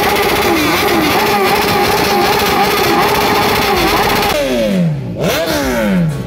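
Superbike engines running at a loud, steady drone whose pitch dips and recovers about twice a second. About four seconds in this gives way to two long falling sweeps in pitch.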